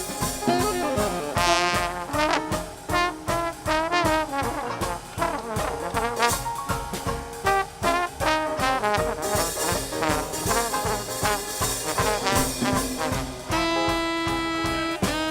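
Traditional Dixieland jazz band playing live, horns carrying a melodic instrumental passage over a steady beat; a horn holds one long note near the end.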